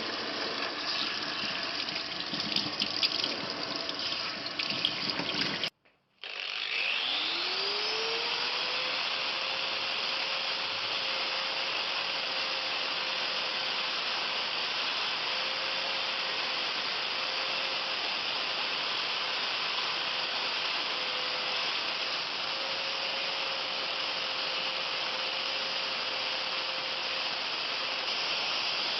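Rubbing or scraping work with scattered clicks for the first few seconds. Then an electric power tool motor spins up, its pitch rising over about two seconds, and runs steadily with a strong hiss.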